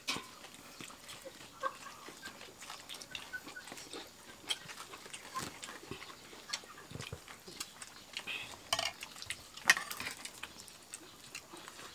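Quiet eating sounds: chewing and lip-smacking, with scattered small taps and clicks of fingers, a spoon and a dish. One sharper click comes near the end.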